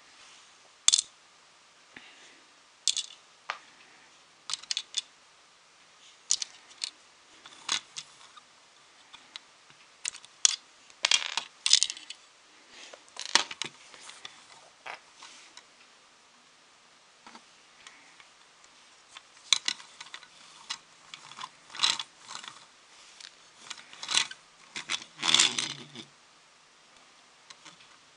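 Small LEGO car being handled on a wooden floor: irregular sharp plastic clicks and taps, some in quick clusters, with a few quiet stretches between them.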